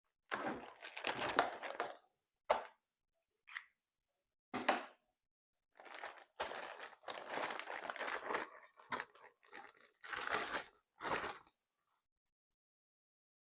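Packing tape being peeled and torn off a plastic toy X-wing, with packaging crinkling, in a series of irregular rustling bursts separated by short pauses.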